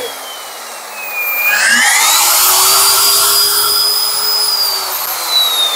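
Handheld Dongcheng diamond core drilling machine's motor running with a high whine. The pitch sinks as it slows over the first second or so, rises as it speeds back up about a second and a half in, holds steady, then eases down near the end.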